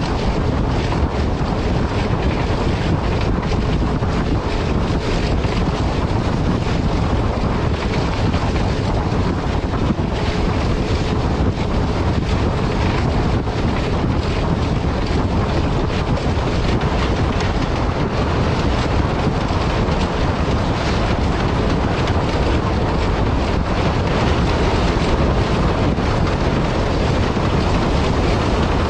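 ALCO HBU-20 diesel locomotive under way, a steady loud rumble of engine and running gear with heavy wind buffeting the microphone.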